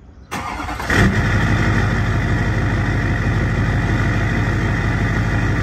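Straight-piped 6.6 L LBZ Duramax V8 turbodiesel of a 2007 Chevrolet Silverado 2500HD. It starts up about a second in and settles into a steady, loud idle.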